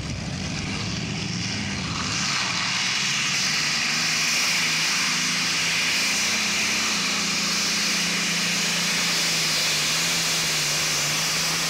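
Multi-engine modified pulling tractor running at full throttle while hauling the weight sled: a loud, steady engine note that builds over the first two seconds, then holds and sinks slowly in pitch.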